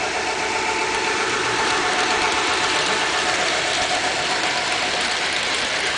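Garden-railway model freight train rolling past on its track: a steady rapid clicking rattle of the wheels and cars over the rails, with a faint motor whine that fades about halfway through.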